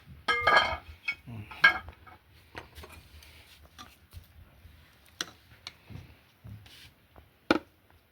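Metal cooking pot and utensils clanking: several ringing knocks in the first two seconds, then scattered sharper clinks, the loudest near the end.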